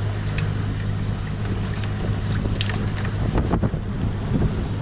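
A boat's engine running steadily as a low hum, with wind on the microphone and scattered light clicks and knocks.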